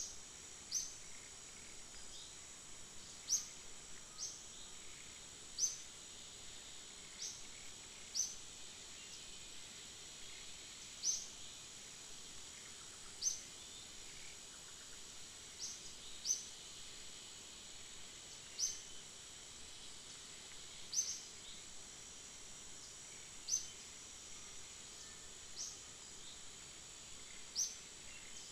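A steady high-pitched insect drone, with short, sharp high chirps repeating irregularly every one to three seconds.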